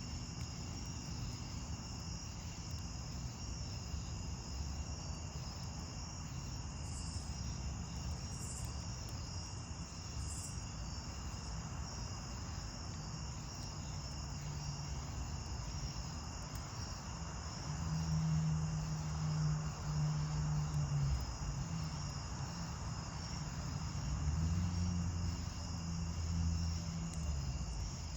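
Crickets chirping steadily in a fast pulsing trill, over a low droning hum that swells louder twice in the second half.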